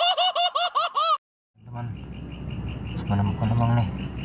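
A cartoonish intro sound effect of quick, repeated rising-and-falling notes stops about a second in. After a short gap, crickets chirp steadily over a low hum.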